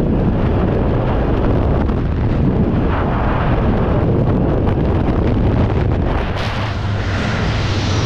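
Loud, steady rush of freefall wind buffeting the microphone during a skydive. The deepest rumble eases slightly a little after six seconds.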